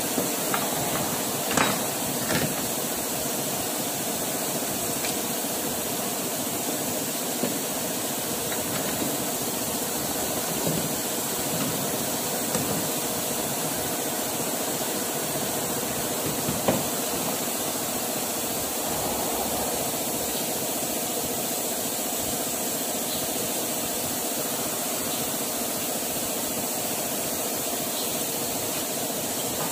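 Steady machine-shop drone of running machinery with a faint hum, broken by a few sharp metal clanks and knocks as a heavy metal fixture is handled and fitted around the workpiece on the lathe, mostly in the first few seconds and once more partway through.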